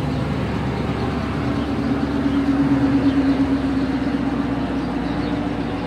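A 2016 Dodge Charger R/T's 5.7-litre HEMI V8 idling steadily with a low hum, still cold shortly after a cold start. It swells slightly louder about two to three seconds in.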